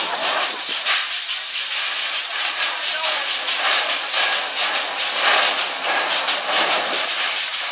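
Pere Marquette 1225, a 2-8-4 Berkshire steam locomotive, standing and venting steam with a loud, steady hiss.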